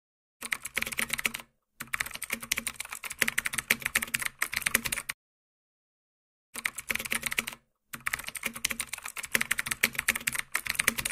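Computer-keyboard typing sound effect: quick key clicks in four runs of one to three seconds, with dead silence between the runs.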